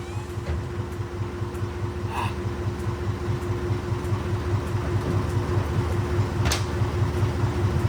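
Engine running steadily, with a fast, even low throb and a steady hum; a short click about six and a half seconds in.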